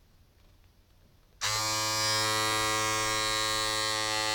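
Philips SatinShave Prestige women's electric shaver, fitted with its small bikini-zone trimming head, switched on about one and a half seconds in and running with a steady buzz.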